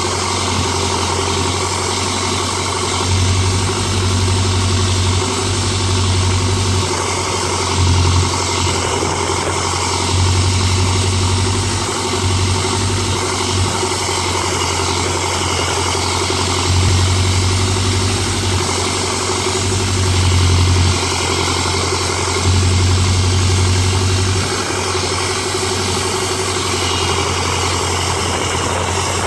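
A homemade sawmill's engine running steadily, its low hum swelling louder for a few seconds at a time at irregular intervals.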